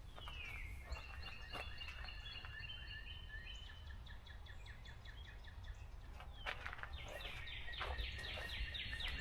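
A songbird singing two phrases, the second about six seconds after the first. Each opens with a down-slurred note and runs into a fast series of repeated notes.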